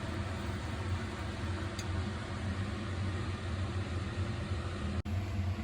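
A steady low machine hum with a hiss over it, broken by a brief dropout about five seconds in.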